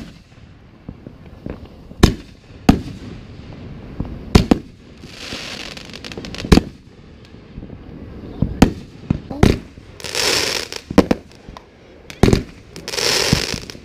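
Consumer aerial fireworks going off: about ten sharp bangs at uneven intervals as shells burst overhead, with stretches of hissing crackle from falling sparks between them, about five, ten and thirteen seconds in.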